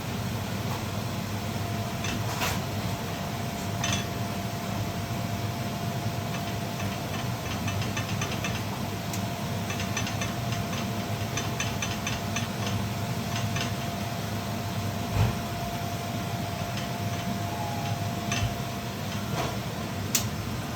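Banana pancakes frying in olive oil in a pan: scattered crackling over a steady low hum, with a few sharp knocks of a utensil on the pan.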